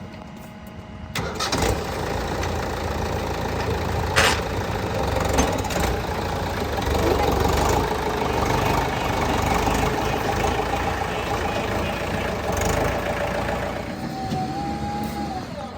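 Heavy diesel machine engine running steadily, loud from about a second in, with one sharp knock about four seconds in.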